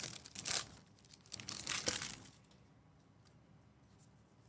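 Crinkling and rustling of baseball card packs and cards being handled, for about two seconds, followed by a few faint ticks.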